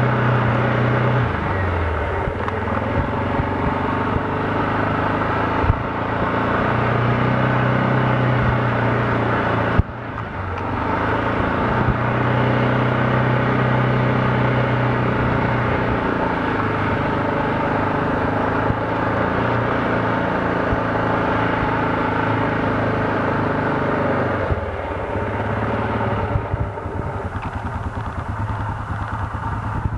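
Four-wheeler (ATV) engine running under way, its steady drone shifting in pitch as the throttle changes, with a short break about ten seconds in. Near the end it drops to a lower, putting idle.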